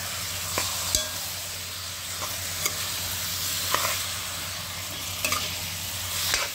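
Curry chicken frying in a pot with a steady sizzle, while a spoon stirs and scrapes, knocking against the pot about seven times.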